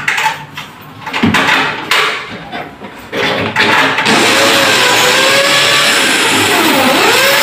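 Corded electric drill starting about four seconds in and running steadily against the aluminium cabinet frame, its motor pitch sagging and recovering as it bites. Before that, a few knocks from handling the cabinet.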